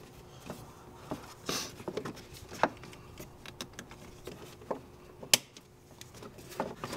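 Hands working the plastic air intake boot and mass airflow sensor housing into place: scattered light clicks and taps of plastic, with one sharp click about five seconds in.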